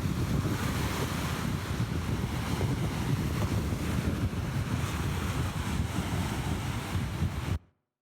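Ocean waves: a steady rush of surf with a low rumble, cutting off abruptly near the end.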